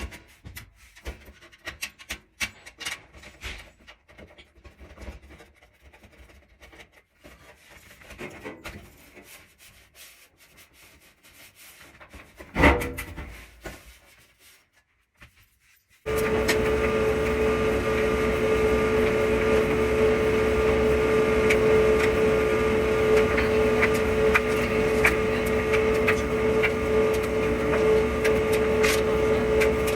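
Scattered clicks and knocks of parts being handled, one loud knock, then about halfway through a clothes dryer starts suddenly and runs with a steady hum.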